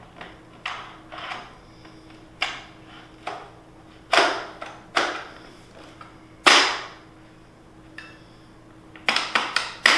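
A string of sharp clacks and knocks from hard objects being handled, about eight spaced irregularly, the loudest about halfway through, then a quick run of clicks near the end.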